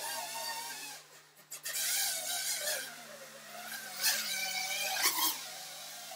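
Micro FPV quadcopter's motors and propellers whining, the pitch rising and falling with the throttle, over a steady electrical hum, with several bursts of hiss.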